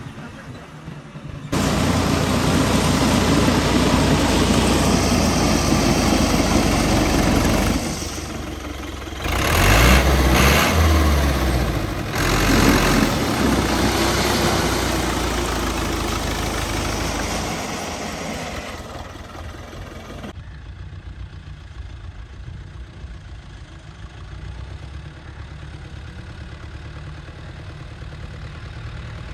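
Fiat 640 tractor's four-cylinder diesel engine running as its hydraulic front blade pushes and scrapes loose gravel, with a rough crunching of stones over the steady engine note. It is loud and close from a second or two in, then drops to a quieter, more distant engine sound about two-thirds of the way through.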